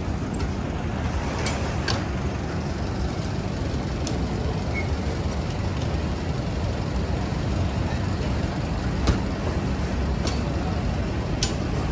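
Steady low vehicle rumble of road traffic, with faint background voices and a few sharp clicks.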